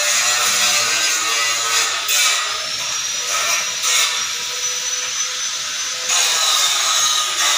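A power tool running steadily, with a thin high whine through the middle stretch.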